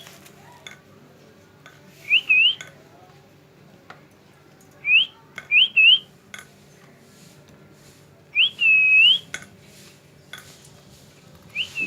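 A series of short, clear whistles, each a quick rising glide, coming in four groups. Some come in pairs, and the longest rises, dips and rises again about two-thirds of the way in. Faint clicks sound between the whistles.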